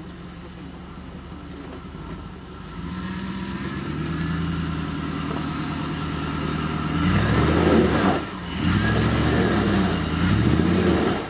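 Jeep Grand Cherokee engine pulling under load as it climbs a steep dirt bank. It runs low at first, builds from about three seconds in, then is revved hard and unevenly over the last four seconds, with a brief let-off in between.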